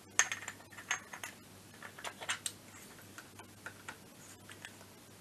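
Small metallic clicks and taps of a scooter's two-stroke cylinder and piston being handled, as a piston ring is pushed into the bore to measure its end gap. The clicks come close together for the first two seconds or so, then thin out.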